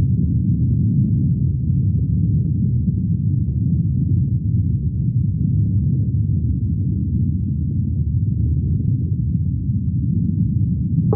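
Steady, deep rumble from a light show's electronic soundtrack, all in the bass with nothing higher and no distinct notes.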